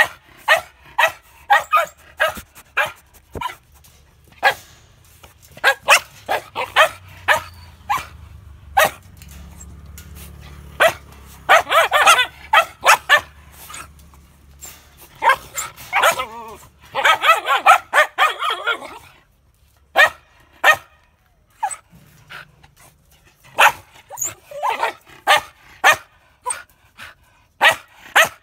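Samoyed dogs barking repeatedly in short, sharp barks, with two longer, busier runs of barking in the middle.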